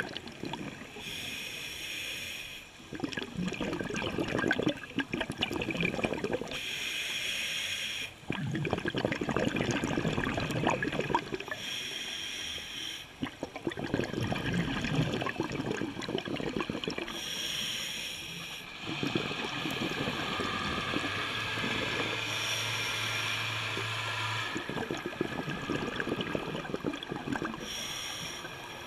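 Scuba diver breathing through a regulator, heard underwater: a short hissing inhale about every five seconds, each followed by a long bubbling, gurgling rush of exhaled air.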